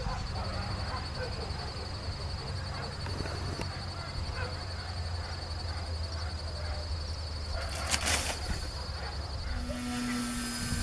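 Wind buffeting an outdoor microphone, with a thin steady high whine throughout and a brief crackle about eight seconds in. Near the end a steady hum starts: the glider's brushless electric motor running up before a hand launch.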